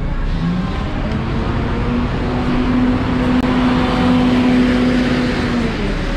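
A motor vehicle passing close by on a city street. Its engine holds one steady note while the tyre and road noise grows to a peak about four seconds in and then eases off.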